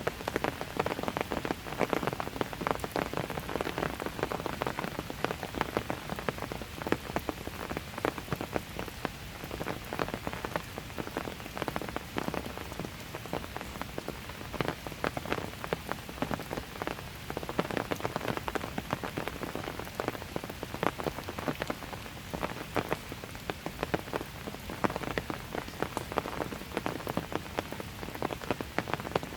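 Steady light rain falling on hard surfaces, a continuous patter of many close, irregular drop ticks.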